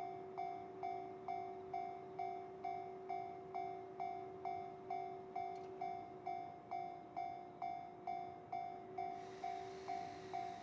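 Japanese railway level-crossing alarm ringing in an even repeating ding, a little over two strikes a second, over a faint steady lower tone.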